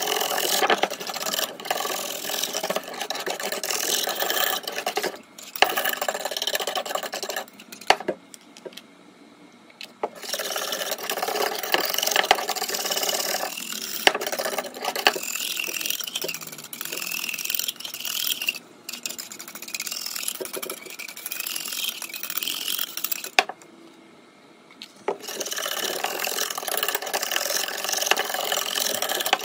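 Wire whisk beating a thick half-chalk ground mixture in a metal pot: a continuous rattling scrape with occasional sharp clicks, stopping twice for about two seconds.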